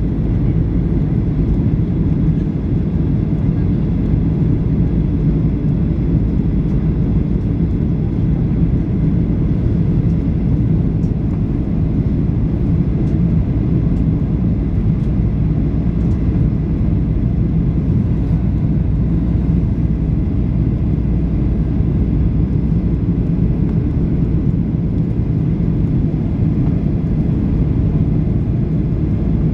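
Steady low drone of a Boeing 737-800 in flight, heard inside the passenger cabin: engine noise and airflow over the fuselage, unchanging throughout.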